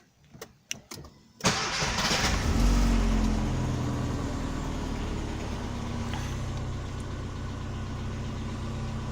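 Car engine started with a push-button start-stop switch: a few light clicks, then about a second and a half in the starter cranks and the engine catches, revs briefly and settles into a steady idle.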